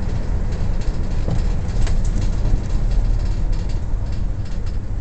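Steady low rumble of a car's road and engine noise, heard from inside the moving cabin, with a few light clicks over it.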